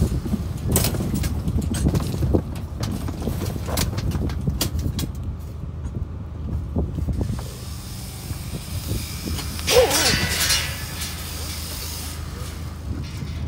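Electric shearing handpiece running steadily while crutching merino ewe lambs, with a clatter of knocks over the first few seconds. A sheep bleats once about ten seconds in.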